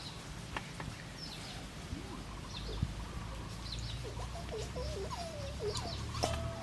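Birds calling outdoors: scattered short high chirps, then a run of wavering calls in the second half, over a steady low rumble.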